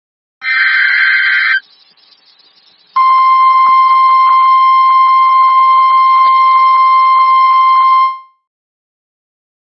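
Emergency Alert System broadcast over NOAA Weather Radio: a short burst of screeching SAME digital data tones, then after a gap a steady 1050 Hz weather radio warning alarm tone lasting about five seconds, announcing a new severe thunderstorm warning.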